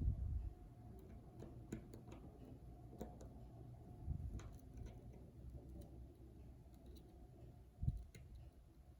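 Faint, scattered small clicks and ticks of hand tools and small parts being handled during an iPhone repair, with a few low bumps against the work surface: one at the start, one about four seconds in and one near the end.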